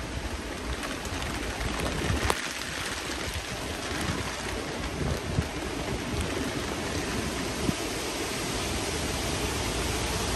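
Heavy thunderstorm rain pouring down steadily as a dense, even hiss, with a few sharp taps of drops striking something close by.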